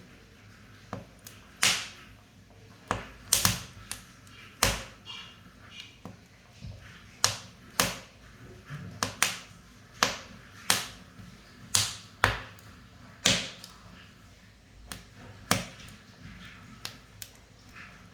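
Wood fire burning in a wood-fired cooking stove, crackling with sharp, irregular pops, roughly one every half second to a second, over a faint low hiss.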